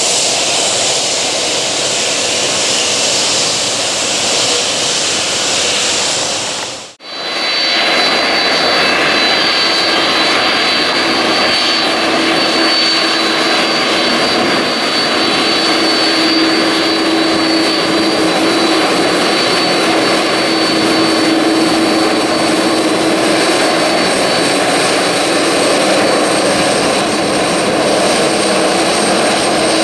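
Airbus A330-200 jet airliner's engines running, a loud steady roar. It cuts out for an instant about seven seconds in and comes back with a steady high whine over the roar.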